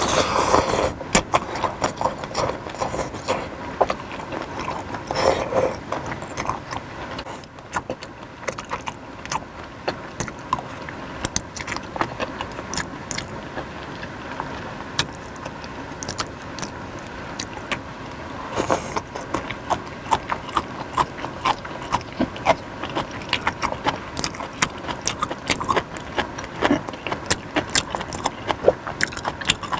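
Close-miked eating of suki soup with beef and vegetables: dense, irregular wet clicks and smacks of chewing, with a few longer noisy swells about 5 and 18 seconds in.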